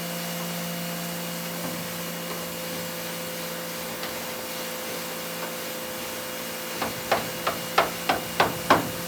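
Steady workshop machine hum, then from about seven seconds in a run of quick, even hammer blows, about three a second.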